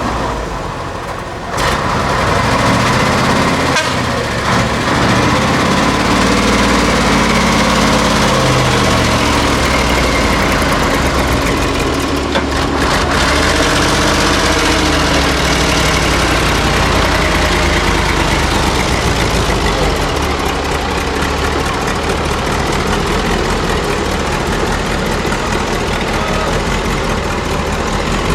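Heavy diesel engines of a stuck truck and an excavator running and revving under load. The sound gets louder about two seconds in, and the pitch rises and falls over the next few seconds before settling into a steady hard run.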